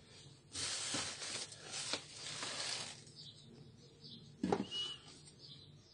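Handling noise from hands moving around a toner cartridge on a wooden table: a couple of seconds of rustling and rubbing with a few clicks, then a sharp knock about four and a half seconds in.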